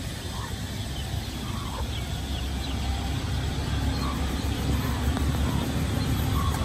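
Dumplings frying in a wok of hot oil, the oil sizzling, under a deep steady rumble that grows louder about halfway through, with faint voices in the background.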